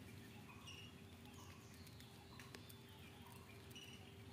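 Near silence: faint short chirps repeating about once a second, with a few soft clicks and a steady low hum.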